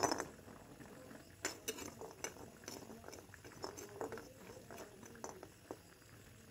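Jackfruit seeds dropped into a wok with a knock, then a steel spoon clicking and scraping against the pan as it pushes them around. The sounds are faint and come in scattered short strokes.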